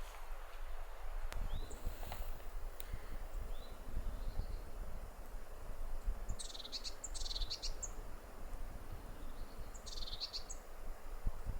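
Wind rumbling on the microphone while a small songbird calls: a few short rising chirps and two bursts of rapid, high trilling, about six and ten seconds in.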